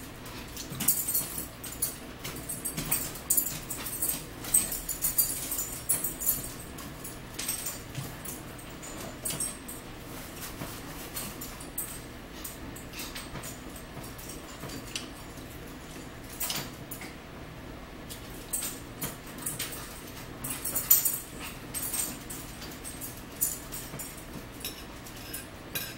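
Close-miked eating sounds: chewing and lip smacking with small clicks of a fork on a plate, coming in irregular clusters of short clicks.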